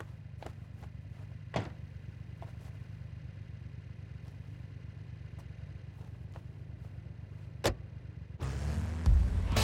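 Steady low rumble of idling sports-car engines. A car door shuts about a second and a half in, and there is another short knock near the end. Music begins just before the end.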